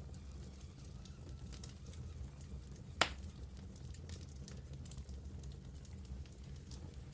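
Wood fire burning in a fireplace: a low steady rumble with scattered light crackles and one sharp, loud pop about three seconds in.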